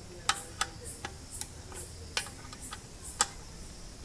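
Irregular sharp clicks and taps, one or two a second, from hand work on an electric water heater's parts.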